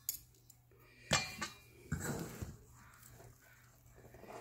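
A metal fork clinking and scraping against a stainless steel mixing bowl while working sticky sourdough dough: a few sharp clinks, the loudest about a second in, and a scraping stretch around two seconds in.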